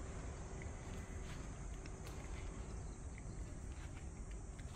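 Steady outdoor background noise with a low rumble, a faint steady hum and scattered faint clicks and short chirps.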